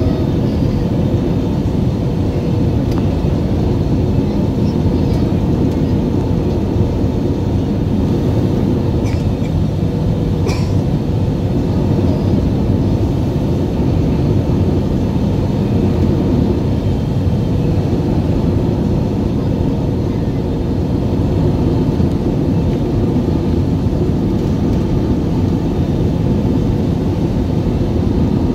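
Steady cabin noise of a jet airliner on final approach, heard from a window seat over the wing: engine and rushing airflow, with a faint steady hum. A short click about ten and a half seconds in.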